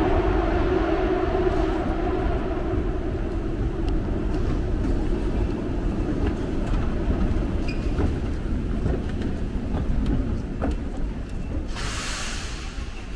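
Subway train running, a low rumble with a steady hum that fades after the first few seconds and faint clicks along the way. About twelve seconds in comes a short burst of air hiss.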